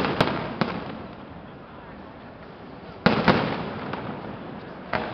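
Aerial firework shells bursting with sharp bangs: three in the first second, a louder pair about three seconds in that trails off, and one more near the end.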